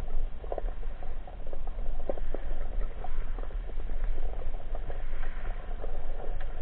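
Underwater ambience picked up by a camera in a waterproof housing: a steady low rumble with irregular crackling clicks scattered throughout.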